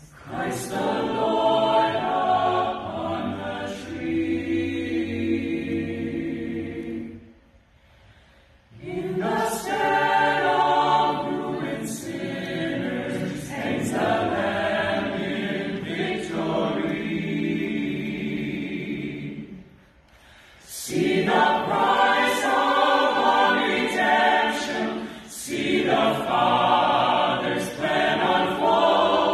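Mixed a cappella choir of men and women singing in parts, in long phrases broken by two short pauses, one about eight seconds in and one about twenty seconds in.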